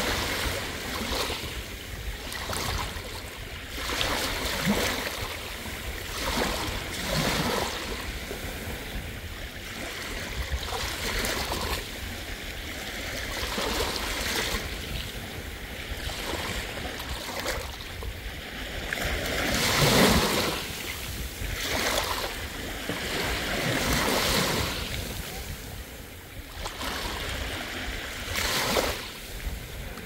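Sea waves washing onto a beach, each surge swelling and fading every few seconds, the biggest about two-thirds of the way through, over a steady low rumble.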